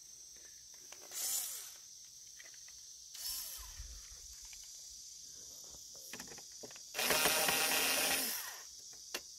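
Bosch cordless screwdriver running for about a second and a half near the end, driving the licence-plate mounting bolt into a motorcycle's rear fender.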